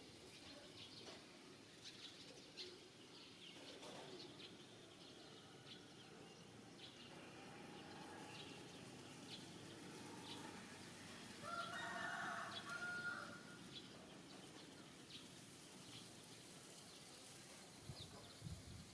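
Faint scattered bird chirps, with a distant animal call lasting about a second and a half a little past the middle.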